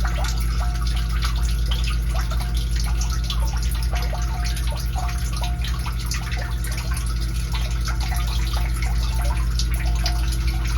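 Submersible sump pump running: a steady electric motor hum with water splashing and dripping in the pit as it pumps the water down.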